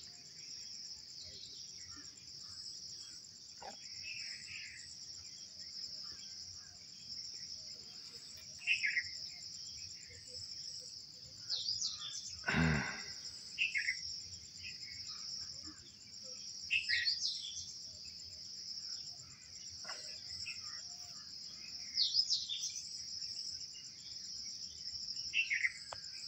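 Steady high-pitched chorus of crickets, with short bird chirps scattered through it. A single brief thump about halfway through.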